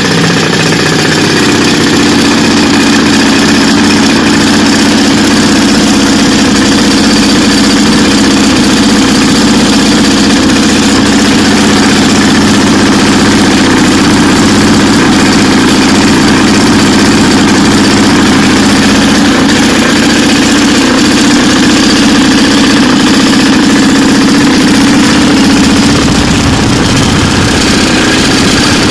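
Fuel-burning propeller engine running steadily and loudly on a thrust test stand, its note shifting slightly near the end.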